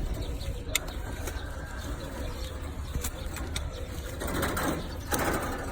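A steady low engine-like rumble, with a few sharp clicks and two short rushes of noise near the end.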